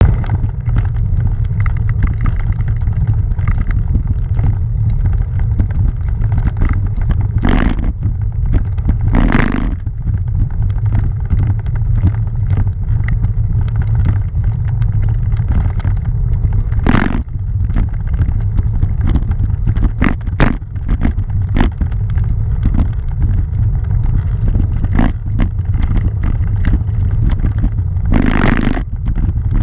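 Steady low rumble of bicycle tyres on a cobblestone road, shaking the handlebar-mounted action camera, with a few brief louder rushes of noise.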